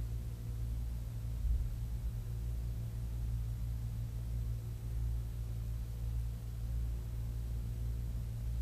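Steady low hum under a faint hiss, with no other distinct sound.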